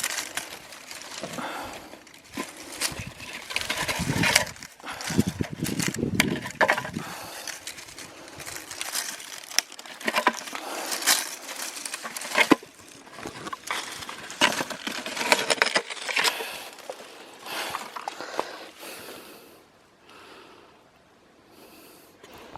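Crinkling and rustling of roadside litter being handled and bagged, with irregular sharp clicks and clinks; it quietens near the end.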